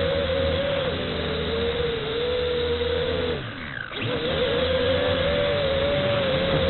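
Multirotor drone motors and propellers whining, with wind noise over the microphone. About three and a half seconds in, the whine drops in pitch and fades as the throttle is chopped, then snaps back up a moment later. The drone is flying on damaged propellers.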